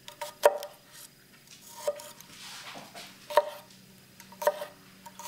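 Bush Boy Knives kitchen knife slicing a garlic clove and knocking down onto an end-grain wooden cutting board: a few sharp knocks about a second apart, with a soft scrape between the cuts.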